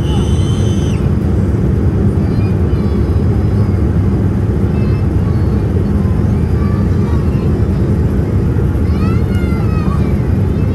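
Steady loud low rumble, with faint high chirping calls in the first second and again near the end.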